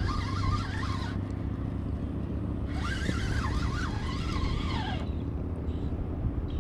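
Spinning reel's drag buzzing in two stretches, briefly at the start and again from about three seconds in, its pitch wavering up and down as a hooked largemouth bass pulls line. A steady low hum runs underneath.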